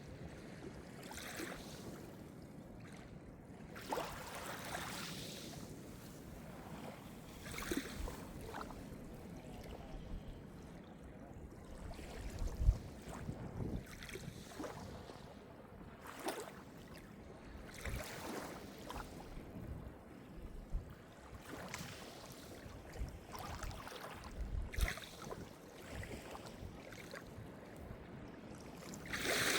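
Calm Mediterranean surf: small waves washing in and breaking every few seconds, each a swell of hiss, with wind rumbling on the microphone and a sharp low thump about twelve seconds in.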